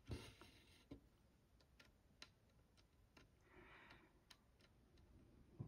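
Near silence with soft cross-stitching sounds: faint, irregular small clicks of the needle going through the fabric, and a short rasp at the start and another about three and a half seconds in as thread is drawn through.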